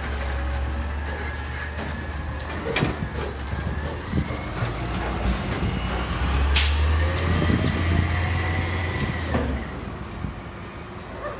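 Low rumble of a passing heavy vehicle, with long, steady high-pitched squealing tones that drift slowly in pitch, and two sharp knocks, about three seconds in and again past the middle.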